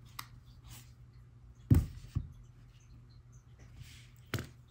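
Precision screwdriver working the small screws at the base of an iPhone 2G, heard as faint scratchy ticks. Sharp handling knocks against the desk stand out: the loudest comes just under two seconds in, a smaller one follows right after, and another comes near the end.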